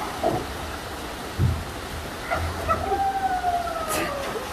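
Water rushing along a waterslide's splash-down lane, with a dull thump about a second and a half in. From about three seconds in, a long tone slowly falls in pitch over the water.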